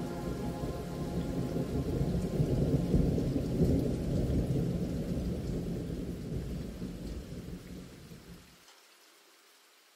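Long roll of thunder over steady rain, swelling about three seconds in and then dying away. The low rumble stops about eight and a half seconds in, leaving only faint rain.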